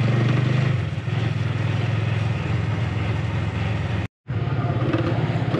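Motorcycle engine running steadily while riding, heard from the bike's onboard camera. The sound breaks off completely for a moment about four seconds in.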